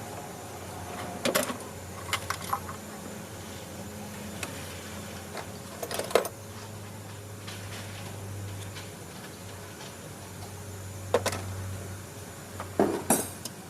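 Scattered metallic clinks and knocks of tools and engine parts being handled, about six sharp ones spread out, over a steady low hum.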